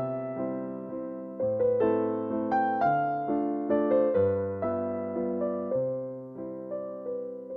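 Background piano music: a slow melody of struck notes, each fading away, over low bass notes that change every second or so.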